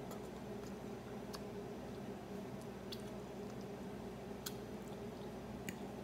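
Mouth sounds of a person chewing a mouthful of spaghetti with meat sauce: soft wet squishing with about four small sharp clicks, over a steady low hum.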